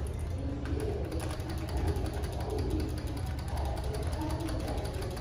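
Schindler/MEI hydraulic elevator running: a steady low hum with faint rapid ticking and rattle from the machinery and car.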